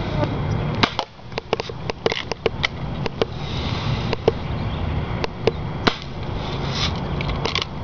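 A Daisy Red Ryder lever-action BB rifle being handled and fired while shooting at cans, heard as sharp clicks and snaps. A quick run of small clicks comes in the first few seconds, then a few single, louder snaps spaced apart, over steady outdoor noise.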